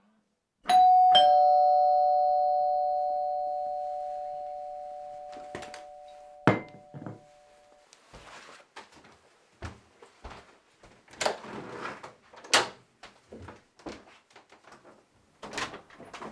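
Doorbell chime: a two-note falling ding-dong about a second in that rings on and fades over several seconds. Then come rustling, shuffling and several sharp clicks, ending with a key and handle clicking in a door lock.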